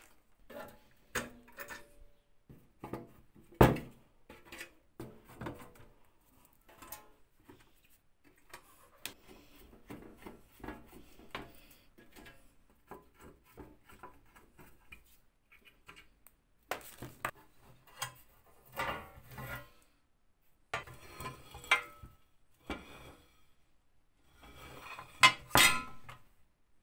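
Hand screwdriver turning screws out of an old metal post box, with scattered clicks, metal clinks and knocks as the screws and parts are handled; the loudest knocks come about four seconds in and near the end.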